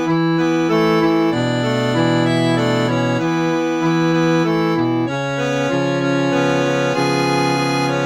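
Reed organ playing a slow, melancholy tune in held chords. The notes sustain without fading and change about every second.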